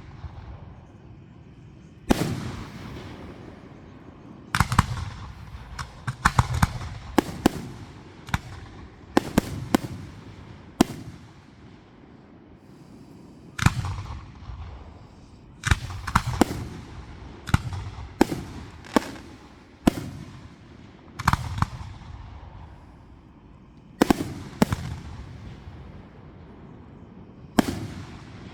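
Aerial fireworks exploding overhead: sharp bangs at irregular intervals, several in quick clusters of two or three, each trailing off in a low rolling echo.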